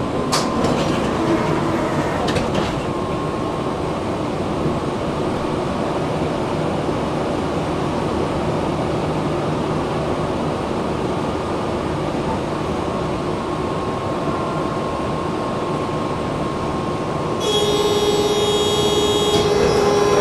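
Tatra T3 tram running between stops, heard from inside the car: a steady rumble of wheels on rails. Near the end it gets louder, and a steady high-pitched squeal of wheels on rails sets in.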